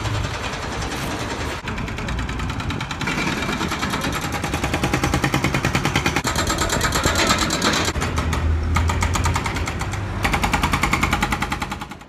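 A pavement breaker at road works hammering rapidly and continuously, over the steady running of a diesel engine. The hammering stops and picks up again a couple of times.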